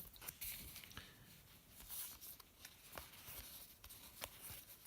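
Faint rustling and a few light clicks of trading cards being handled and flipped through.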